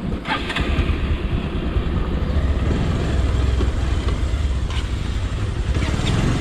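A motor vehicle running with a steady low engine rumble amid road noise, with a few brief clicks over it.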